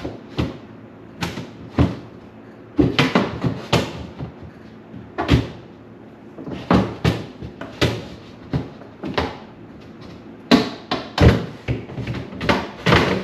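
Irregular knocks, clatters and bumps of refrigerator shelves, drawers and containers being handled and set down during cleaning. The loudest bangs come about ten to eleven seconds in.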